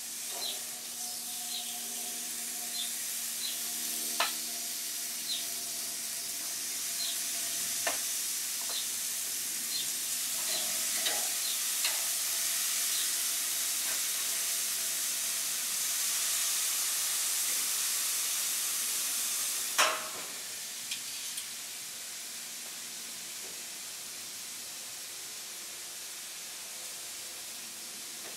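Chicken pieces sizzling as they are laid on a hot gas grill grate to sear, with light clicks of metal tongs. About two-thirds through there is a sharp clank as the grill lid is shut, and the sizzling carries on quieter.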